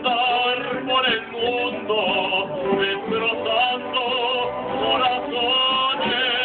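Mariachi band playing, with violins carrying a wavering melody over strummed guitars.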